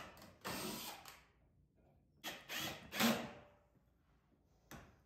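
Ryobi 18V cordless drill driver driving screws into wood in short bursts: one about half a second in, three close together around two to three seconds in, then a brief click near the end.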